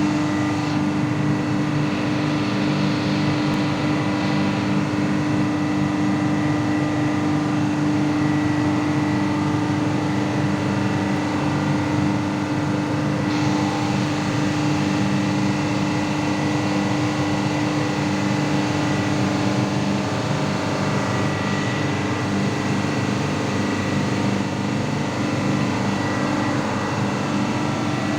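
Ship's diesel engine running in the engine room: a loud, unbroken machinery drone with a steady hum and a thin high whine over it.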